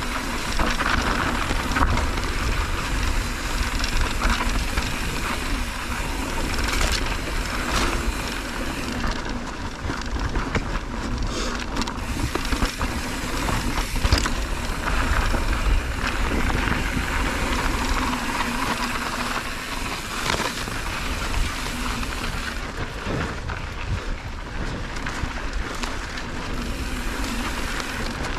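Mountain bike riding fast down dry dirt singletrack: the tyres roll over loose dirt and the bike rattles and knocks over bumps and rocks, with wind rumbling on the camera's microphone that eases about two thirds of the way through.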